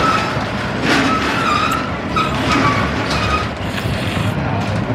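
Steady street noise from passing vehicle traffic, with short snatches of faint background voices.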